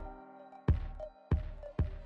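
Background music: sharp drum hits about every half second over held steady tones.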